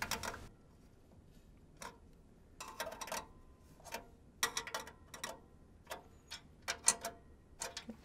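Light, irregular metallic clicks and ticks, some in quick clusters, as motherboard standoffs are screwed into a PC case's metal motherboard tray and tightened with a hand tool.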